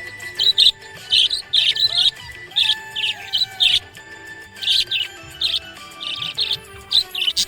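Budgerigars chirping in quick, short repeated chirps, over background music with long held tones.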